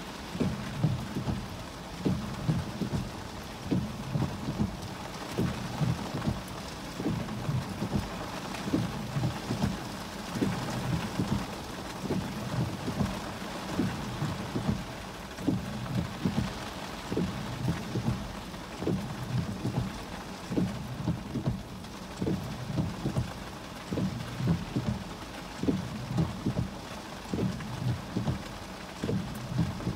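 Heavy rain drumming on a car's roof and windshield, heard from inside the cabin: a steady hiss with a dense, irregular patter of low thuds from large drops.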